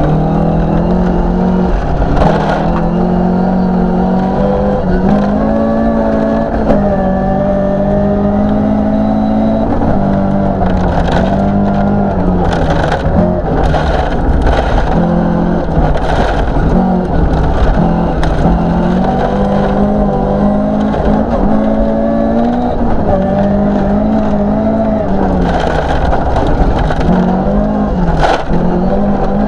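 1972 Toyota Celica 2.0GT's twin-cam four-cylinder engine at hard throttle, heard from inside the cabin, its revs climbing and dropping again and again through gear changes. Gravel hisses under the tyres, and stones crack against the underside now and then.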